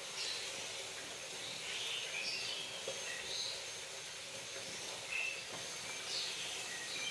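Spatula stirring thick macaroni and cheese in a nonstick frying pan: scattered short, high squeaky scrapes over a steady hiss from the portable gas stove's burner.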